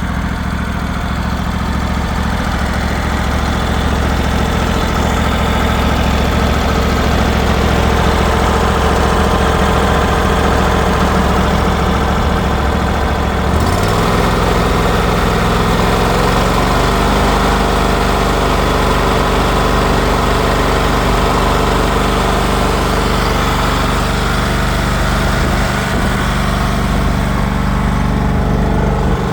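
John Deere L130 riding lawn mower's engine running steadily. About halfway through its speed steps up, its note rising and then holding at the higher pitch.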